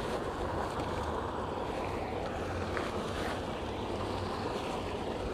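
Steady rushing outdoor noise of river water and wind, with no distinct events.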